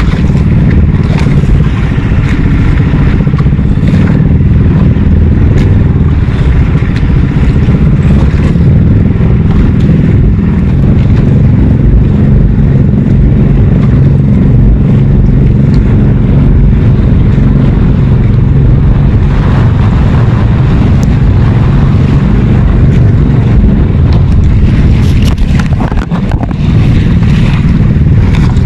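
A small engine running steadily with a loud, low drone, with scattered knocks and clatter over it.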